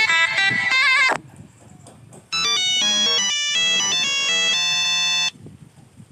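A Nokia phone tone: a quick run of bright electronic notes ending on a held chord, about three seconds long, starting a couple of seconds in. Before it, a musical phrase with bent notes stops about a second in.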